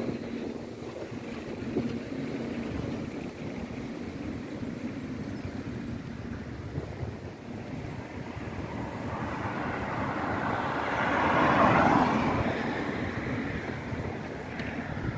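A car passing on the road. Its engine and tyre noise swells to a peak about eleven to twelve seconds in and then fades, over a steady low outdoor rumble.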